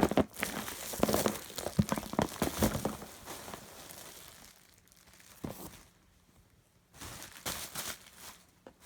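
A cardboard box being opened by hand: tearing and crinkling of the box and its wrapping, busiest and loudest in the first three seconds, dying down, then a few more rustles near the end.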